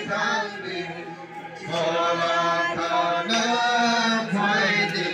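A group of voices chanting or singing together in long held notes, a worship chant. They go quieter briefly about a second in, then swell again.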